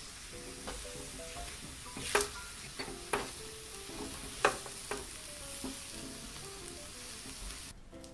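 Choux pastry dough being stirred and pressed with a spatula in a hot stainless steel pan, sizzling steadily as the paste cooks on the heat, with a few sharp knocks of the spatula against the pan, the loudest about two and four and a half seconds in. The sizzle stops shortly before the end.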